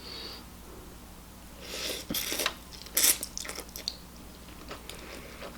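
Eating sounds: a fork working in a bowl of lobster ramen, with short scrapes and squishy noises partway through and a sharp clink about three seconds in, plus soft chewing.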